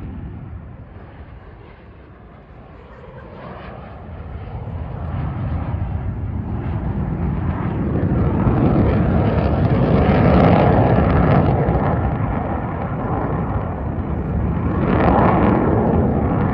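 Jet engine noise from a formation of military display jets passing overhead. It dips early on, swells to its loudest about ten seconds in, eases, and then rises again about fifteen seconds in.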